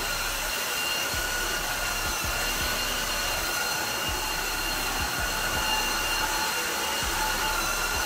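Tosima H1 cordless wet-dry vacuum mop running steadily in its water-suction mode, its suction motor giving a constant whine with a few faint ticks as it is pushed over the tile.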